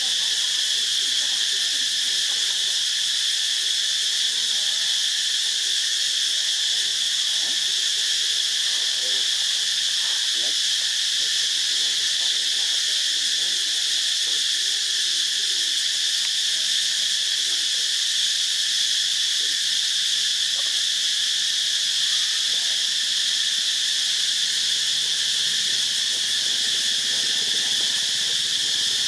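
A steady insect chorus: a loud, high-pitched drone that holds unchanged throughout, with no rhythm or breaks.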